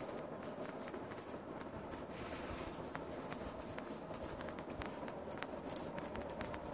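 Irregular light clicks and taps of a kitten's claws and paws skittering on a ceramic tile floor as it pounces on and drags a ribbon, over a steady background hum.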